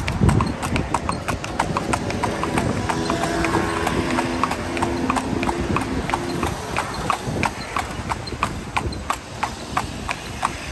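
A carriage horse's hooves clip-clopping on the street in a steady, even rhythm as it pulls a horse-drawn carriage (calèche).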